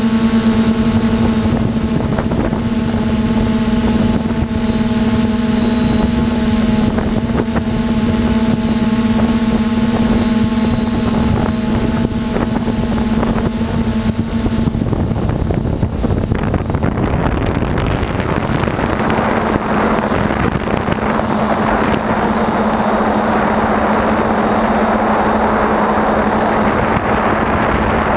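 TBS Discovery quadcopter's brushless motors and propellers humming steadily, heard from on board. About halfway through, a rush of wind noise swells and partly covers the hum, which then comes back underneath it.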